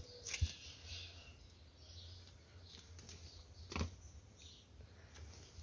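Faint footsteps and scuffs of someone walking across a dusty earthen floor, with a sharper knock about half a second in and another near four seconds in.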